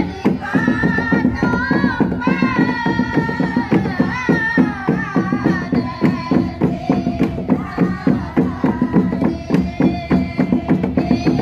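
A group of women singing the Toraja pa'katia chant, a melodic line that wavers and slides, fullest in the first half, over a quick steady percussive beat.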